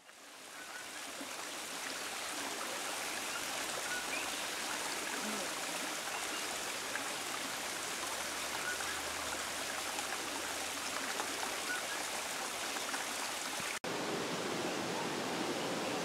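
Steady rush of running water, fading up over the first second or two, with one sudden brief dropout near the end.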